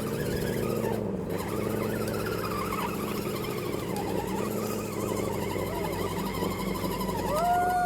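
Axial SCX10 RC crawler's electric motor and gear drivetrain whining steadily as the truck climbs, the pitch wavering slightly with the throttle.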